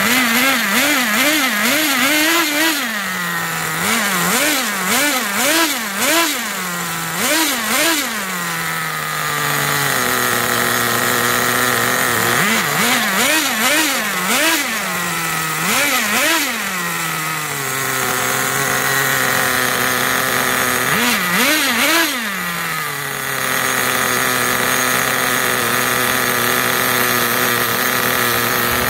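Small glow-fuel nitro engine of an RC monster truck running and being blipped on the throttle: its pitch jumps up and falls back in quick bursts, several in a row, three times over. In between it settles to a steady idle, and it idles steadily for the last several seconds.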